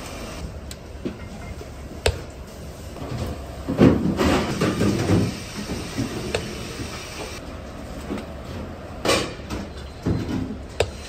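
Steel ladle scooping and scraping cooked rice in a large stainless steel pot, with a few sharp metal clinks, over a steady kitchen roar. The loudest rough scraping comes about four to five seconds in.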